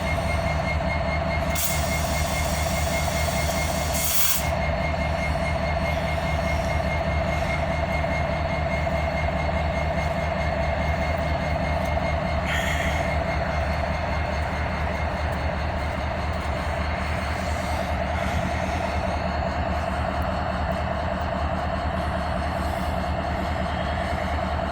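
Diesel-electric freight locomotives, an EMD SD70ACe leading GE ES44s, running with a steady, even hum. A thin high tone sounds through about the first half, and there are two short hissing bursts in the first few seconds.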